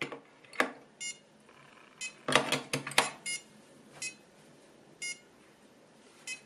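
18650 lithium-ion cells clicking and knocking into the ISDT C4 charger's spring-loaded battery slots, loudest in a quick cluster about halfway through. The charger gives short high beeps about once a second.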